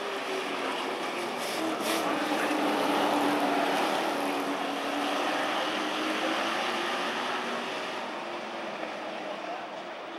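A pack of Super Pro race trucks running at speed around an oval track. Their engines sound as a loud, continuous blare, and the engine note falls slowly as the pack goes through the turn, loudest about three seconds in.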